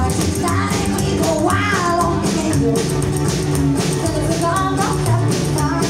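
Live rockabilly band playing an upbeat song: a woman singing in phrases over electric guitar, upright bass and a steady drum beat, heard from the crowd in a club.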